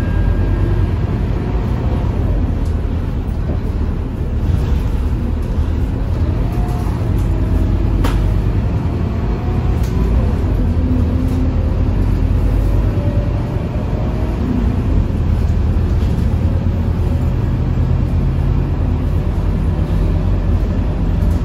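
Scania K230UB city bus heard from inside while driving: steady engine and road rumble under the ZF automatic gearbox's loud whine, which rises and falls in pitch as the bus speeds up and slows. A single sharp click about eight seconds in.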